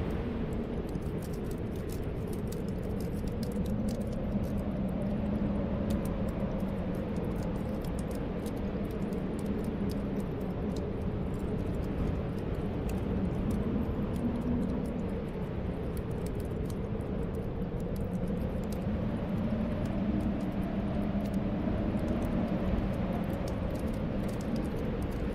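Snowstorm wind blowing in a steady rush with a low whistle that slowly wavers in pitch, while a fireplace crackles with many small, scattered pops.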